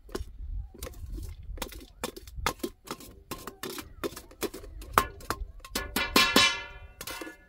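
Metal ladle clinking and scraping against a steel cooking pot and a stainless steel colander as boiled macaroni is scooped, a run of irregular knocks with one louder ringing clang about six seconds in.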